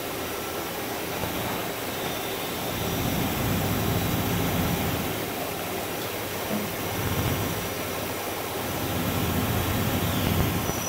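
Steady machine-shop noise from running CNC machinery, a continuous hum with a few faint steady tones, swelling louder a few times.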